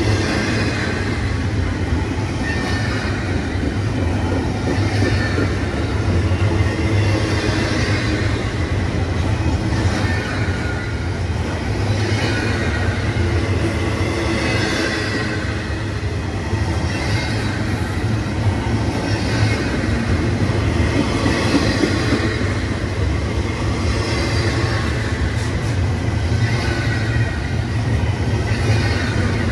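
Double-stack container freight train passing close by at speed: a steady rumble of steel wheels on rail, with a higher hiss that swells and fades about every two seconds as the cars go by.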